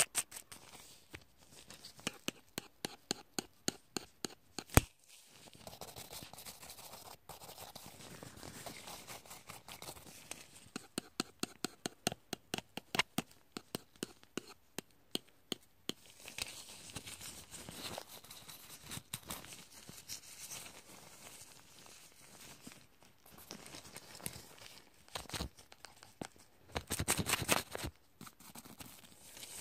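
Close-miked ASMR grooming sounds against a phone's microphone: sharp taps and clicks, some in quick runs, alternating with soft rubbing and scratching strokes. A dense burst of rapid clicking comes near the end.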